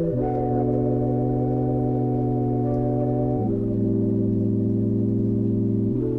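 Background music of held organ-like keyboard chords, the chord changing about every three seconds.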